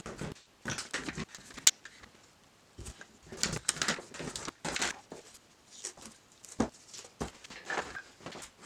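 Irwin quick-release bar clamps being released and lifted off glued wooden segments: irregular clicks, clacks and scrapes of plastic and steel, with the wooden pieces set down on cardboard.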